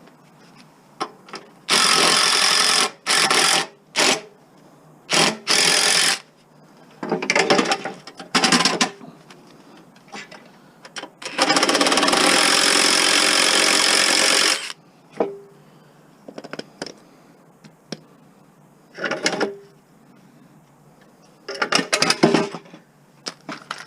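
A power tool cutting, run in about ten on-off bursts. Most are a second or less, one is about three seconds long, and a few are quieter.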